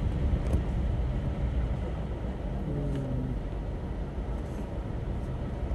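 A vehicle moving slowly along a flooded road, with a steady low rumble of engine and tyres.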